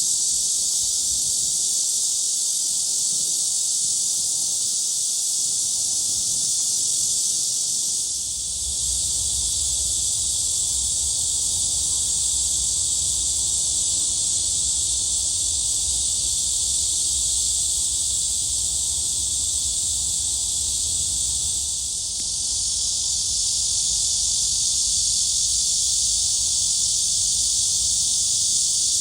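Cicadas singing in a dense, steady high-pitched chorus that eases briefly twice, with a low rumble underneath through the middle stretch.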